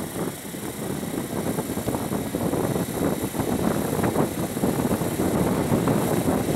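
2005 Honda 50 hp four-stroke outboard motor running as the boat gets under way, growing louder as it speeds up, with water churning behind the stern.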